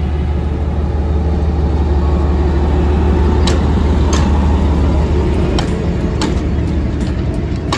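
An Lxd2 narrow-gauge diesel locomotive running under load as it pulls its train away past, its steady low engine drone dropping away about five and a half seconds in. From about halfway on, the passing coaches' wheels give sharp clicks on the track, roughly one a second and more often near the end.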